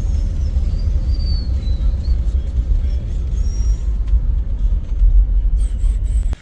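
Steady road and engine rumble inside a moving car, a loud deep drone.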